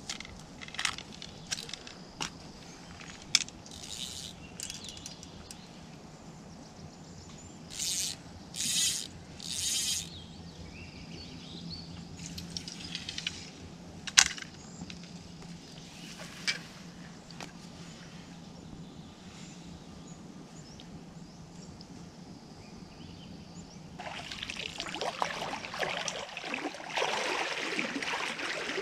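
Fly-fishing tackle being handled: scattered clicks and rustles and three short swishes about a third of the way in. Near the end, sustained splashing and sloshing of shallow lake water as someone wades in.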